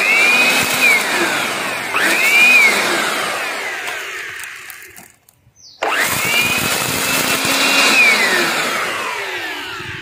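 Jakmister 600W handheld electric blower-vacuum, used as a vacuum, switched on and off in three short runs. Each time the motor's whine rises quickly, holds briefly and then slides down as it coasts, with a brief silence a little past the middle.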